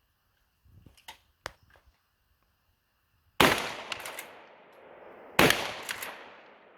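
12-gauge pump-action shotgun fired twice, about two seconds apart, each loud blast trailing off in a long echo across the range, likely with buckshot. A few light clicks of gun handling come before the first shot.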